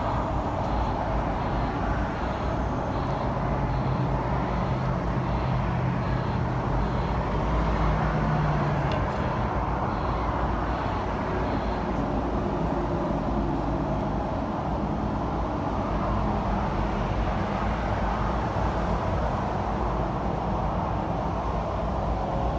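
Steady outdoor background noise: a continuous rumble and hiss, with a low hum that fades about halfway through and faint regular ticks about twice a second in the first half.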